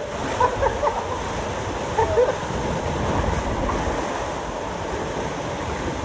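Water rushing and splashing along an enclosed water-park river ride, a steady loud wash, with brief voice sounds from the riders about half a second in and again about two seconds in.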